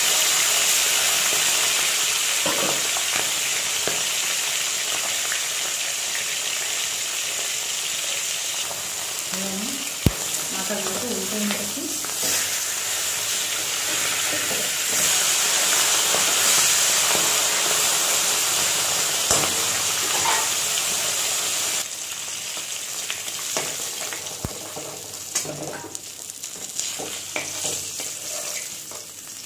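Katla fish heads and pieces sizzling as they fry in hot mustard oil in a kadai, with a metal spatula scraping and tapping against the pan. The sizzling drops to a quieter level about two-thirds of the way through.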